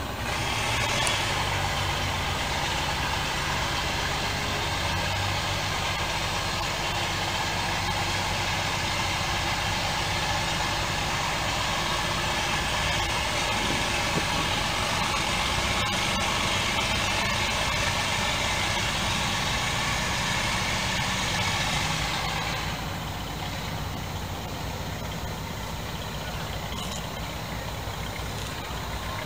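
A steady, idling-type engine sound with a rushing noise over it; the rushing noise drops away about 22 seconds in, leaving the lower hum.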